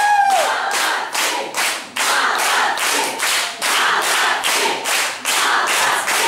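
A crowd clapping in rhythm, about three claps a second, with faint voices under it. A held sung note trails off and falls in pitch about half a second in.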